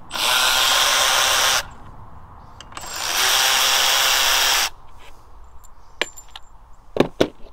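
Cordless ratchet run in two bursts of about a second and a half each, backing out the two 8 mm bolts that hold the oil pickup tube to the engine block; the second burst winds up as the trigger is squeezed. A few sharp clicks follow near the end.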